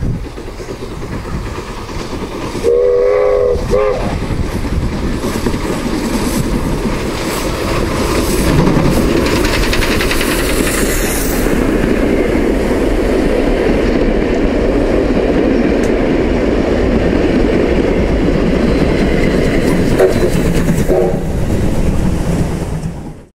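Heritage steam train passing: a steam locomotive whistle blows once for about a second and a half about three seconds in, then the train rolls by with a steady, loud running noise, and a shorter whistle sounds near the end.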